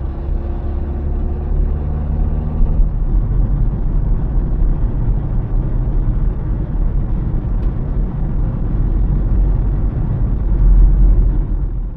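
Car engine and road rumble heard from inside the cabin while driving, a steady low drone; the engine note rises slightly over the first couple of seconds. The sound cuts off suddenly at the end.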